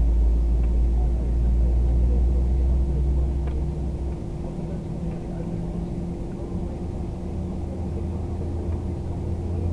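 Airliner cabin noise around takeoff: steady jet engine noise with a heavy low rumble that drops off sharply about four seconds in, over a constant hum.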